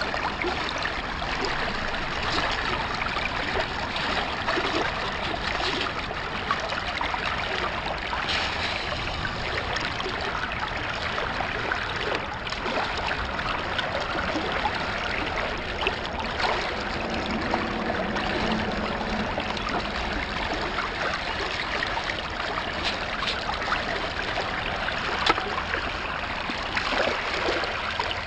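Water running steadily through a Gold Hog sampling sluice, rushing and gurgling over the mat.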